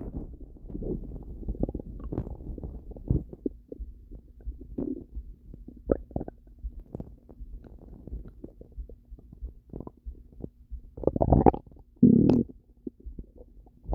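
Human stomach rumbling and gurgling: a run of irregular low gurgles and pops, with the loudest rumbles about eleven and twelve seconds in.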